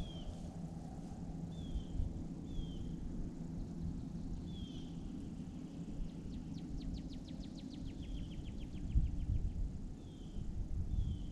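Killdeer calling near its nest: short, high, falling notes every second or two, with a fast rattling trill a little past halfway. Wind rumbles and buffets the microphone throughout.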